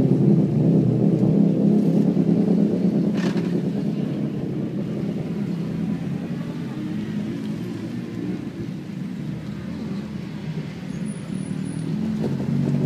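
Rally car engines running as the cars drive past one after another. The sound is loudest at first, fades through the middle, and another car's engine grows louder near the end.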